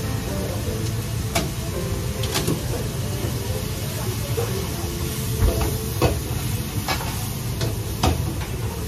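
Food sizzling in a wok over a steady low rumble from the kitchen's extractor hood, with a metal ladle knocking against the wok about six times.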